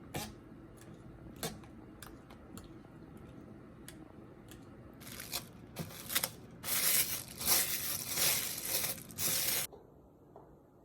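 Plastic packaging torn open and crinkled in loud, irregular bursts, after a few seconds of light sharp clicks and taps. It stops abruptly near the end.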